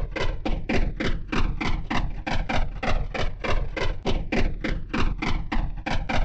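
Machine gun firing a steady automatic burst, slowed down, so the shots come as separate heavy reports at about five a second.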